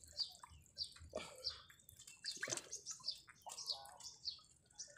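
Faint, scattered small splashes and drips of water, a few each second, from people moving in shallow water and handling the netting.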